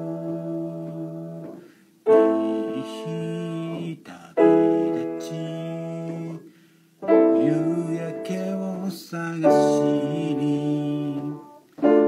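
Piano played in slow chords, each struck chord ringing and dying away before the next, one about every two and a half seconds.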